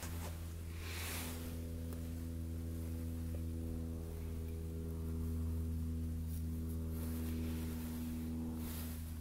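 Background music: a steady low drone of held tones, its upper notes dropping out near the end.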